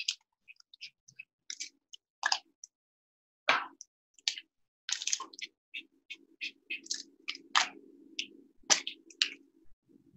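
Tip of a paint marker dabbing short dashes onto paper: a quick, irregular series of light ticks and scratches. About halfway through, a low steady hum comes in underneath.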